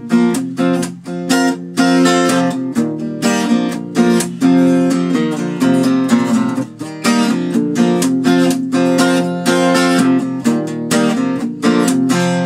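Acoustic guitar strummed in a steady rhythm, each stroke of the chord ringing on into the next.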